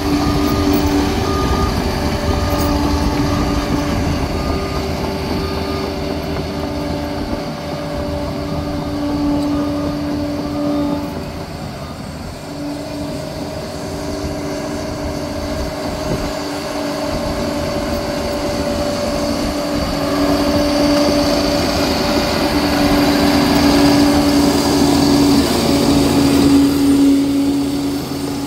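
Liebherr 746 crawler dozer's diesel engine running and working, with a steady tone that drops out and comes back several times as the machine changes load.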